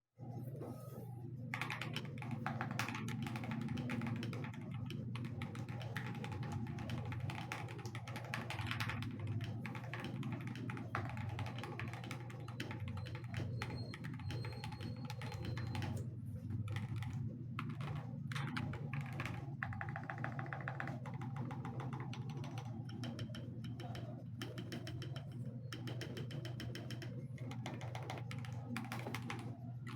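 Continuous typing on an Akko 5075B Plus mechanical keyboard with lubed Akko CS Silver linear switches, aluminium plate, tape mod and Cherry-profile keycaps: a dense run of keystroke clacks with a few short pauses, over a steady low hum.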